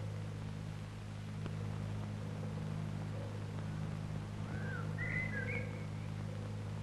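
Steady low hum of an old film soundtrack, with a few faint, short high chirps of bird calls about two-thirds of the way in.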